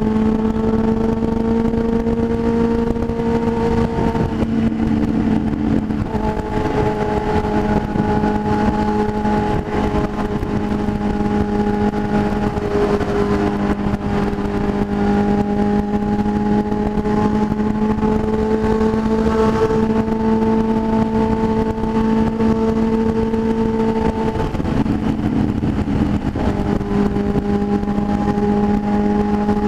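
Motorcycle engine running at steady cruising revs under road and wind noise. The engine note breaks off briefly twice, about four seconds in and again about twenty-five seconds in, then settles back to the same pitch.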